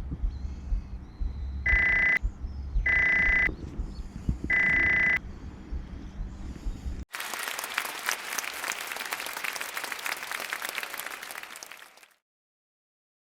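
Wind rumbling on the microphone, with three short, steady high-pitched beeps about a second apart. About seven seconds in the sound cuts abruptly to a hissing, crackling patter like applause, which lasts about five seconds and fades out.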